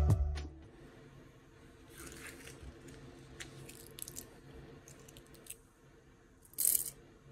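Plastic press-on nails handled in the hand with small clicks and rustles, then a short, sharp clatter about six and a half seconds in as they drop into a clear glass jar. The tail of soft guitar music ends in the first half second.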